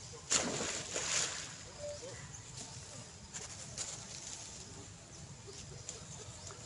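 Long-tailed macaques swimming and splashing in a pond. There is a loud splash shortly after the start lasting about a second, then scattered smaller splashes and paddling in the water.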